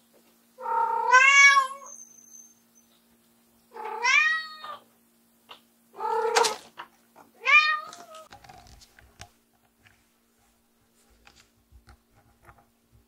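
White Munchkin cat meowing loudly four times, each call about a second long and a couple of seconds apart: calling for her owner, who has left the room. Faint scattered taps follow the last call.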